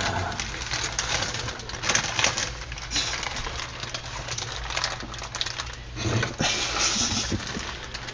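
Brown deli paper crinkling and rustling as a wrapped sandwich is unwrapped and handled, in irregular bursts of crackle.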